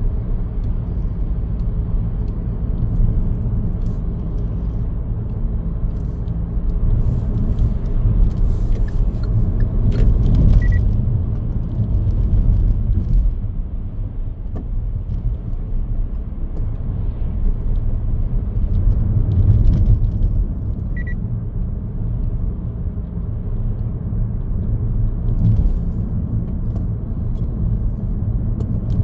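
Car on the move: a steady low rumble of engine and road noise, swelling and easing with the drive. Two short high beeps sound, one about ten seconds in and one about twenty-one seconds in.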